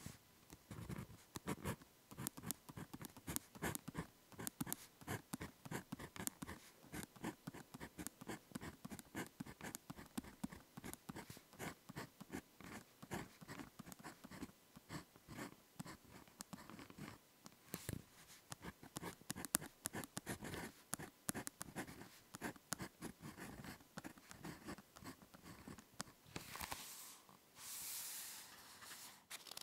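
Ballpoint pen writing Japanese characters on paper, close up: a quick run of short scratching strokes and little taps, then a couple of longer, smoother brushing sounds near the end.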